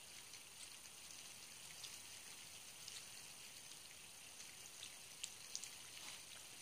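Near silence: a faint steady hiss with a few scattered soft ticks, a couple of them slightly stronger about five seconds in.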